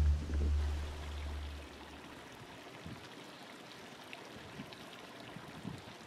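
A brief low rumble in the first second or two, then a steady faint hiss of running water with a few small ticks.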